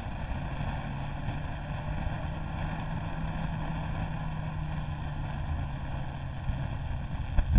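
Motorcycle engine running at steady road speed under rushing air noise, holding one even note that drops away about a second before the end.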